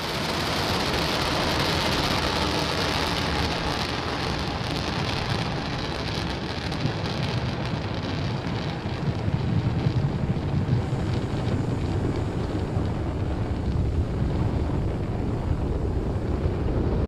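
Falcon 9 first stage's nine Merlin engines roaring during ascent, a steady, dense rumble of noise. The hiss in the high end fades over the first few seconds, leaving a heavier low rumble.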